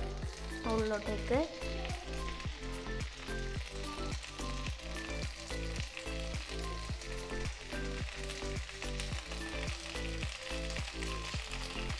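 Potato fries sizzling in butter in a non-stick frying pan over a low gas flame.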